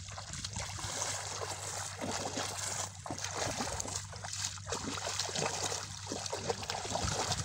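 Shallow muddy pond water splashing and sloshing in irregular strokes as a long pole is jabbed down into the margin beside a woven bamboo fish trap, driving fish into it.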